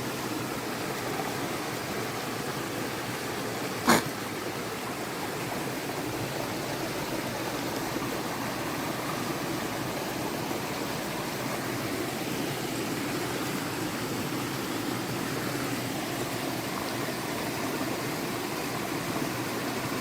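Low-flowing woodland stream running down a long cascade of small falls, a steady rushing with little water in it after dry weather. A single sharp click about four seconds in.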